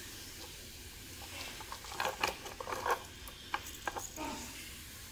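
Faint clicks and rustles of a gold-plated necklace being handled and turned in the hand, bunched together about halfway through, over a steady faint hiss.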